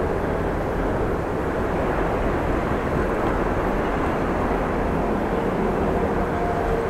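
Gusty wind buffeting an action camera's microphone during a bike ride into a headwind: a steady rumbling rush of noise. A faint steady tone joins near the end.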